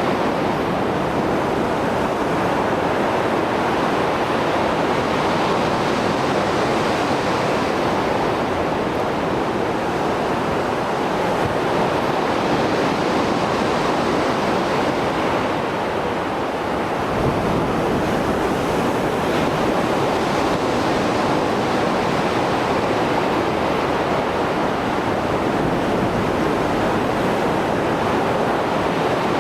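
Mediterranean Sea waves after a storm: a steady rush of surf with gentle swells and ebbs as the waves break.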